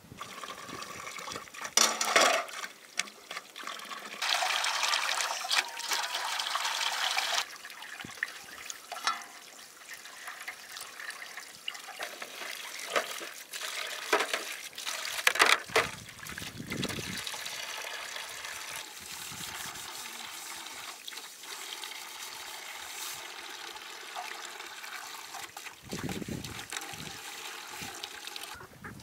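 Running water with scattered knocks and clicks. It gets louder for about three seconds starting about four seconds in, then drops off suddenly.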